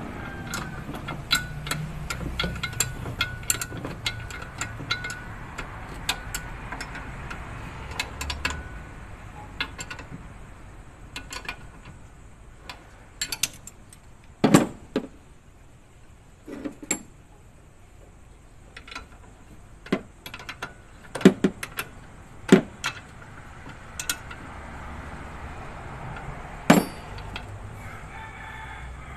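Hand tools clicking and clinking on metal engine fittings during a truck fuel-filter change. Quick light clicks come thickly in the first several seconds, then sparser, louder knocks later on.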